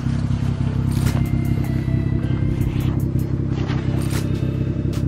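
BMW F30 sedan's engine idling steadily, with scattered sharp clicks over it.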